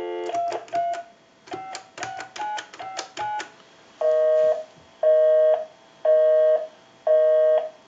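A telephone line's dial tone cuts off as a string of touch-tone digits is dialed quickly. The line then returns a busy signal, a two-tone beep switching on and off about once a second.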